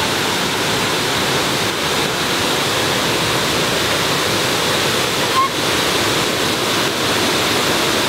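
Waterfall close by: a loud, steady rush of falling water.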